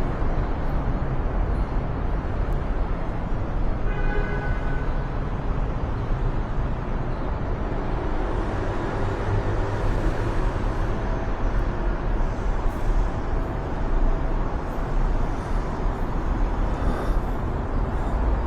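Steady street traffic noise with a heavy low rumble, and a short pitched tone about four seconds in.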